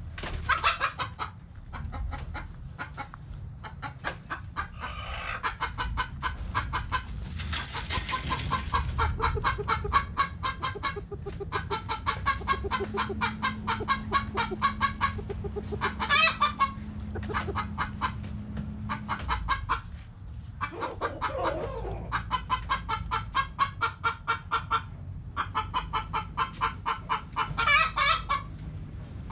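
Backyard chickens clucking in dense runs of short, rapid clucks, with a steady low hum for several seconds in the middle.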